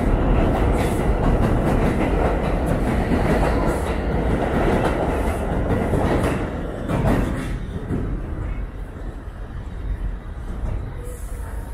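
New York City subway train running on the tracks, heard from inside the car: a steady rumble with wheels clattering over the rail joints. The noise eases off in the second half.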